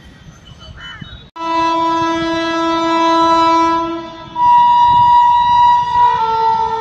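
A locomotive horn starts suddenly about a second in and sounds loudly in long held blasts, its pitch stepping to a different tone twice.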